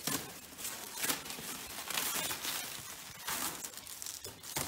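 Plastic stretch wrap being torn and pulled off a pallet, crinkling and crackling in irregular bursts.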